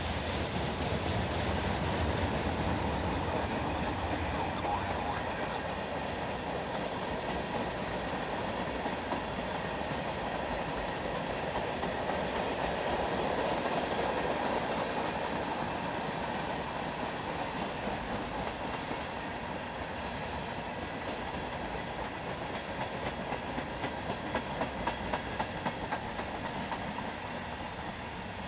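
Norfolk Southern freight train rolling past, a steady rumble and rattle of railcars on the track. Near the end comes a quick run of clickety-clack as the wheels cross rail joints, about three clicks a second.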